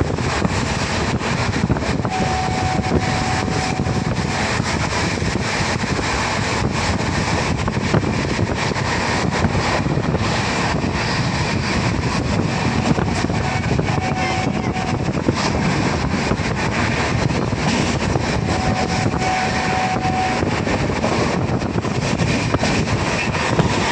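Passenger train running at speed, heard from an open coach window: a steady rush of wheel and track noise with wind buffeting the microphone and scattered clicks. A faint high thin tone comes and goes three times.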